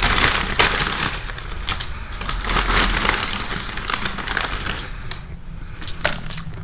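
Continuous crunching and crackling noise, thick with sharp clicks, that cuts off suddenly near the end.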